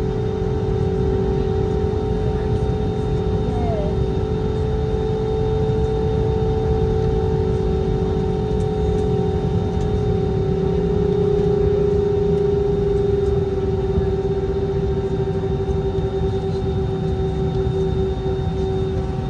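Airbus A320-200 cabin noise: the engines running at a steady setting, with a low rumble and a steady hum.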